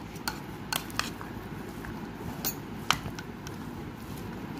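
Metal spoon mixing a potato, chickpea and tomato filling in a plastic bowl, with several sharp clicks of the spoon against the bowl, the loudest about three seconds in.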